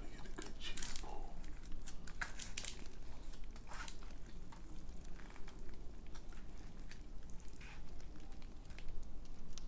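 A fork scooping food out of a thin aluminium foil tray: the foil crinkles and the fork scrapes and clicks against it in scattered, irregular strokes.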